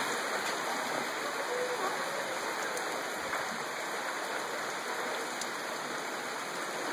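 Mountain creek rushing over rocks: a steady, even hiss of flowing water.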